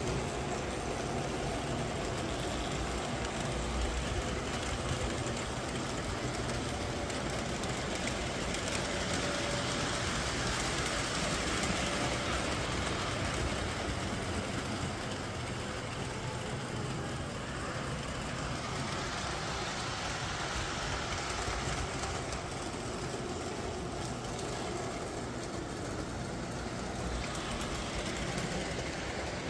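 Model electric trains running around a layout: a steady rumble of wheels and motors on the track.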